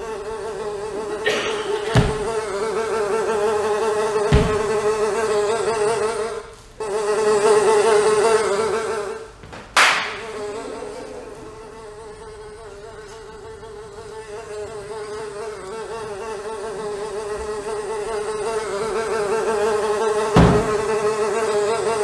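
A high, insect-like buzz, like a mosquito's whine, holding one wavering pitch with a rich edge. It drops out briefly twice near the middle. Four sharp smacks are spread through it, the loudest about ten seconds in.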